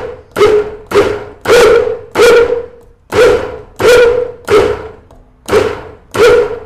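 Countertop blender pulsed in quick bursts, about ten in a row at roughly one and a half a second, each a sharp motor whir that dies away at once. It is chopping a thick banana smoothie until no chunks are left.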